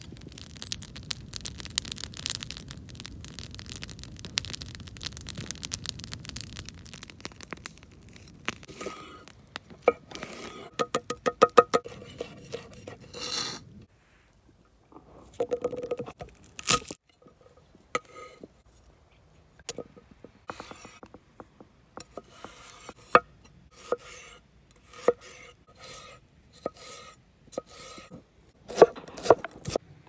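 A wood campfire crackling. Then comes a run of separate sharp knocks as a cleaver chops garlic and ginger on a wooden cutting board, some knocks with a short ringing tone from the blade.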